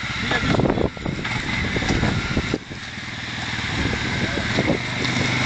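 ATV engine running at low speed as the quad wades through a shallow stream, with water splashing around the wheels. The engine dips briefly about halfway, then builds steadily toward the end.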